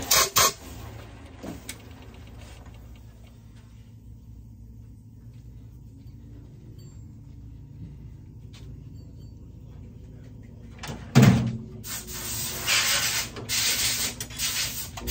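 A manual Logan metal lathe's motor is switched off with a couple of sharp clacks, and the low running hum dies away as the chuck coasts to a stop. About eleven seconds in there is a loud thump, then a few seconds of clattering and handling noises at the lathe.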